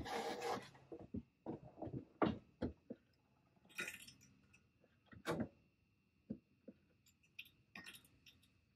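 Quiet, irregular clicks, knocks and brief rustles of hands-on work on a truck during a one-man brake bleed, with a faint steady high tone underneath.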